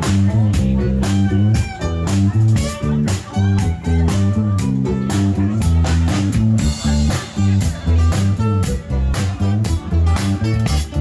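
Live band playing on drum kit, bass guitar and electric guitars, with a steady beat and a guitar melody over the bass line.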